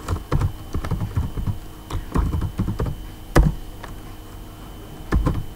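Typing on a computer keyboard: a quick, irregular run of keystrokes with one louder key strike about three and a half seconds in, then a pause and a few more keys near the end.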